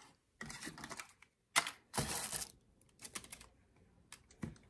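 Handling noise close to the microphone: an irregular string of light clicks, taps and rustles with short quiet gaps.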